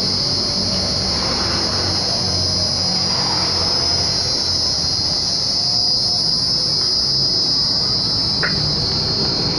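A steady, high-pitched chorus of insects, crickets or similar, shrilling without a break over a low rumble.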